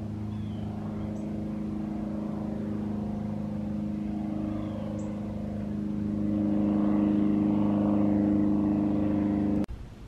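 An engine running steadily at a constant pitch, growing louder about two-thirds of the way through, then cutting off abruptly near the end.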